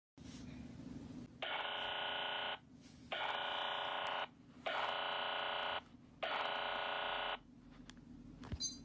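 Four buzzing electronic tones, each about a second long with short gaps between them, over a steady low hum. A short click comes near the end.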